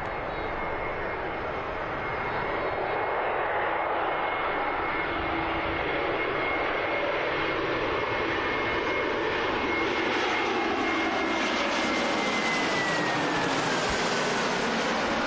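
Airbus A320neo's twin turbofan engines on final approach as the jet flies low overhead: a steady rumble with a high whine that glides down in pitch about twelve seconds in as the plane passes.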